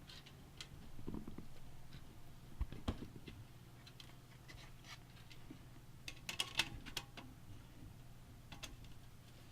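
Scattered light clicks, taps and knocks of small computer parts being handled during a PC build, with a quick run of sharper ticks about six seconds in, over a faint steady low hum.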